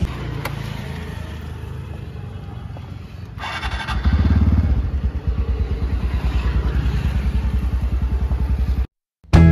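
TVS Ntorq 125 scooter's single-cylinder four-stroke engine being started: a brief starter whir about three and a half seconds in, then the engine catches and idles with an even, rapid pulse. The sound cuts off sharply near the end.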